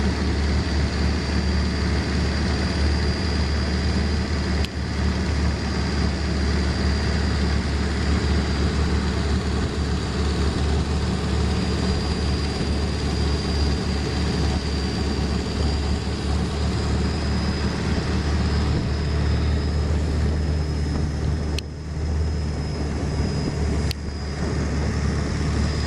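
A tour boat's engine running steadily at cruising speed, with a strong low drone and a thin steady high whine over a haze of engine and water noise. The sound dips briefly twice near the end.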